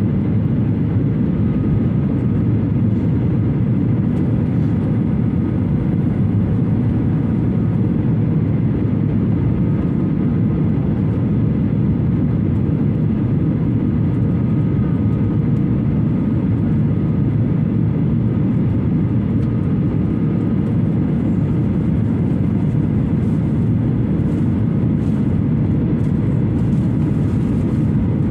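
Jet airliner in flight, heard inside the cabin at a window seat over the wing: a steady roar of engines and rushing air, with a faint steady high whine.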